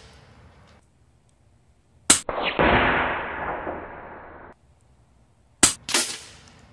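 Shots from a .177 PCP bullpup air rifle. There is a sharp crack about two seconds in, followed by about two seconds of rushing noise that fades and then cuts off. Near the end come two sharp cracks about a third of a second apart.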